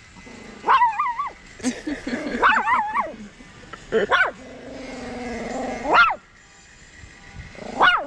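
Teacup chihuahua giving about six high-pitched yips and howling cries that glide up and down, the longest a drawn-out howl that rises at its end about six seconds in. It is reacting to a car alarm.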